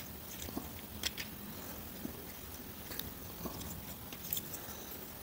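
Plastic parts of a knock-off oversized Studio Series Ratchet Transformers figure being handled and shifted, giving a handful of light, scattered clicks over a steady low hiss.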